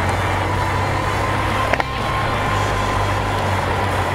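Honda CB750's air-and-oil-cooled inline-four engine running steadily at low speed, purring softly, as the motorcycle rolls slowly. A short sharp click comes a little under two seconds in.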